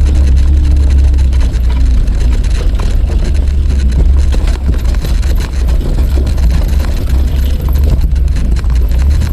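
Suzuki Jimny running, a steady, loud, low rumble of engine and vehicle noise.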